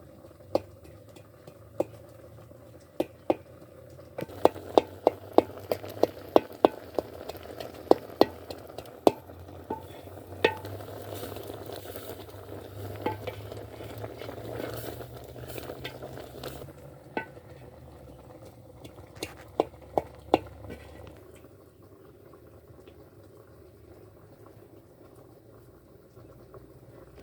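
A utensil stirring food in a cooking pot, with sharp knocks against the pot. The knocks come quickly for a few seconds, about two a second, then more spaced out, and stop after about twenty seconds. A soft sizzling hiss rises in the middle.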